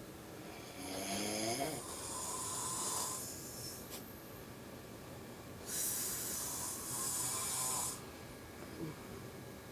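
A sleeping person snoring. There are two long snores: the first, about a second in, has a wavering rattle; the second, from about six to eight seconds in, is a hissing breath.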